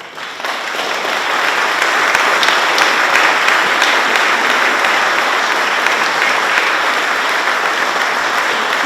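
A large congregation applauding, swelling over the first second into steady, sustained clapping at the close of a eulogy.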